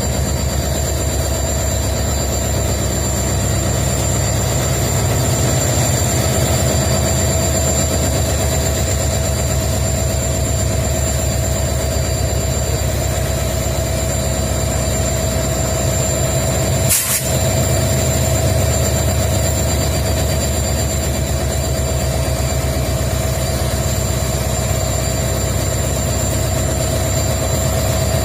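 WDG4 (EMD GT46MAC) diesel-electric locomotive's EMD 710 two-stroke V16 engine idling steadily, with a constant high whine over the low throbbing beat. A single sharp click sounds partway through.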